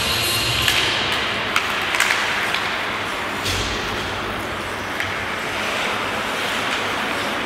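Ice hockey rink during play: a steady hiss of skates on the ice and the open arena, broken by a few sharp clacks of sticks and puck.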